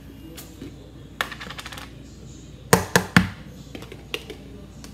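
Screw lid of a plastic mayonnaise jar being twisted open by hand: a quick run of light clicks, then three sharp loud clicks in about half a second, and a few fainter ticks.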